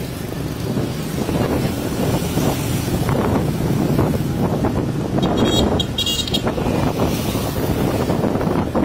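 Wind buffeting the microphone over the running of a motorbike moving along a road, a steady rushing noise. About five and a half seconds in come two short high-pitched beeps.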